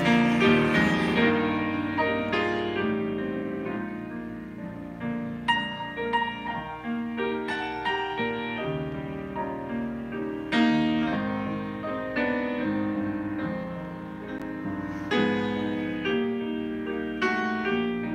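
Grand piano played solo, a hymn arrangement in full chords. The notes ring and fade, with fresh, louder phrases starting about every five seconds.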